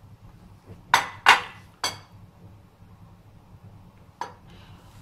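Sharp clinks and knocks of kitchenware being handled and set down. Three come close together about a second in, the second of them the loudest, and a lighter one follows near the end.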